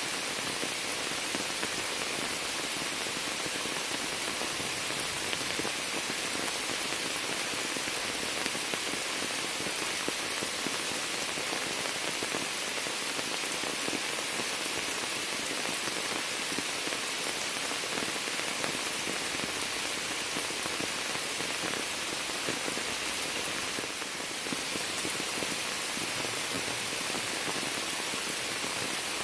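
Steady heavy rain falling on standing floodwater and leafy shrubs: a dense, even hiss of countless drops that barely changes, easing for a moment late on.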